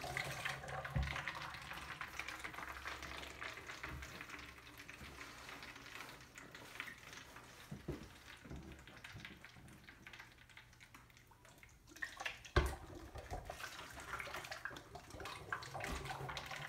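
Water gurgling and splashing as it drains in a swirling vortex through a connector from one plastic bottle into another. Partway through there is a sharp knock as the bottles are handled, and the draining starts again.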